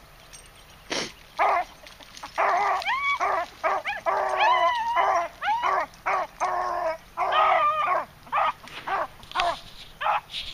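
Beagles baying while running a rabbit's trail: a quick string of short, loud bays and yips that starts about a second in, the voices overlapping at times.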